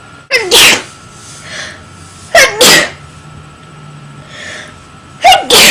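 A person sneezing three times, about two seconds apart, each a loud, sharp burst.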